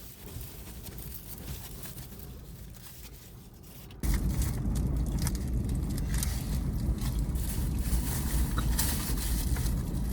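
Wind buffeting the microphone, light at first, then suddenly much louder about four seconds in as a heavy, rumbling gust.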